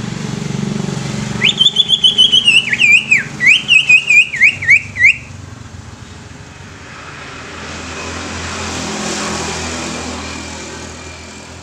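Greater green leafbird (cucak ijo) singing a loud whistled phrase: a high held note, then a quick run of falling slurred whistles, about four a second, stopping about five seconds in.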